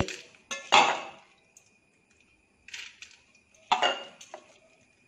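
Washed split moong dal dropped by the handful into an empty pressure cooker, the hand scraping against a steel bowl: three short clattering bursts, the loudest about a second in.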